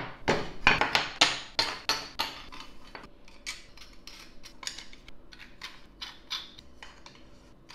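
3D-printed plastic phone-stand parts clicking and knocking together as they are handled and fitted, with printed plastic bolts fitted into them. A quick run of sharp clicks over the first three seconds, then sparser taps.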